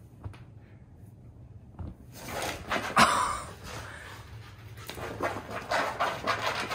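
Dog panting in quick breaths that start about two seconds in, loudest around three seconds in and again near the end.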